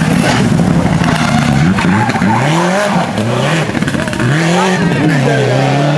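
Subaru Impreza Group N rally car's turbocharged flat-four engine at full throttle as it passes, rising in pitch and dropping back several times with quick gear changes, then holding a steadier note near the end.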